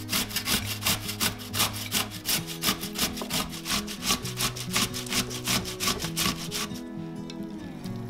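Food being grated by hand on a grater: quick, even scraping strokes, about four a second, that stop near the end.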